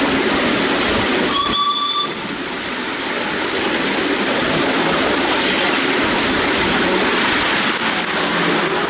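Miniature steam railway train running steadily along the track, with one short blast of the miniature steam locomotive's whistle about a second and a half in.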